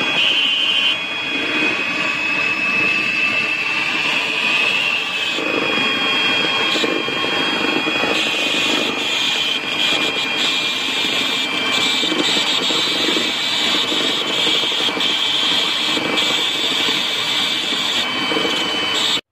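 Handheld electric mixer running steadily with a high motor whine, its beaters whipping buttercream in a metal pot.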